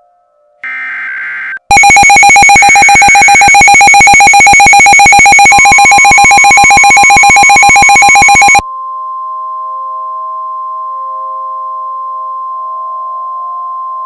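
Emergency Alert System alert tones. About a second in, a short screeching burst of digital header data. Then a very loud, harsh, rapidly pulsing two-tone attention alarm for about seven seconds, followed by a quieter steady single-pitch beep that carries on to the end.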